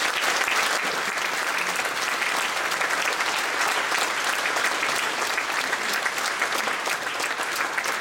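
Audience applauding steadily, the dense clatter of many hands clapping.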